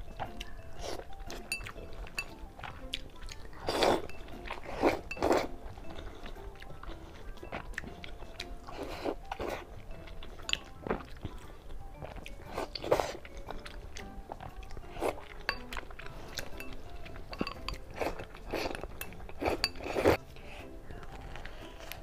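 Close-miked mouth sounds of a person biting and chewing food, irregular wet smacks and crunches with louder bites now and then, over soft background music.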